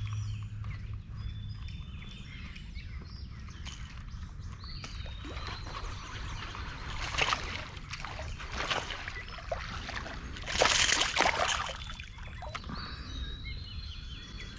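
Water sloshing and trickling, with several louder splashes about halfway through.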